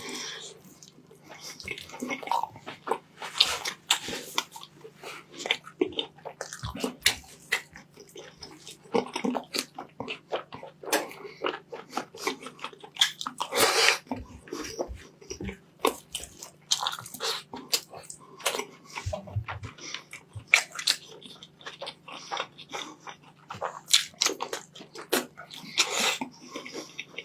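Close-up chewing and biting of a person eating rice and meat: many short, irregular wet clicks, over a faint steady hum.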